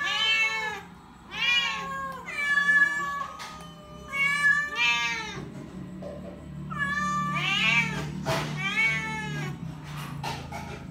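Domestic cats meowing repeatedly: about seven long meows, each rising and then falling in pitch, with short gaps between them.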